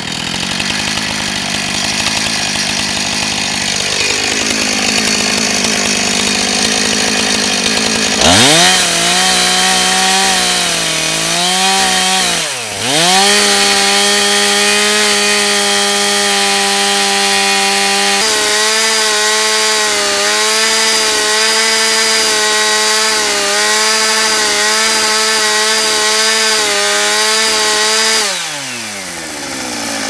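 Husqvarna professional chainsaw idling, then revved to full throttle about eight seconds in, letting off briefly and revving up again a few seconds later. It is held at high revs ripping a log lengthwise, its pitch wavering under the load of the cut, and it drops back to idle near the end. The chain is dull, which the owner calls "good and dull", a sign the saw is straining on this rip cut.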